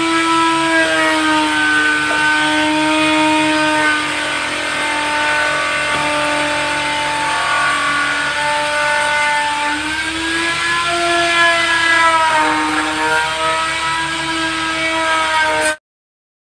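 Electric motor of a handheld woodworking power tool running continuously with a steady whine, its pitch sagging and recovering as the tool is worked along the timber; it cuts off abruptly near the end.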